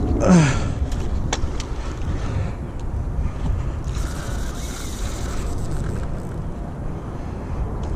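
Steady low rumble of wind buffeting the microphone, with a short falling grunt from the angler just after the start.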